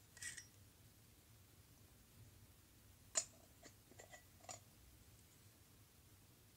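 Small stainless steel toy pots and lids clinking lightly as they are handled and set down, each clink with a short metallic ring. One sharp clink about three seconds in is the loudest, followed by a few softer ones.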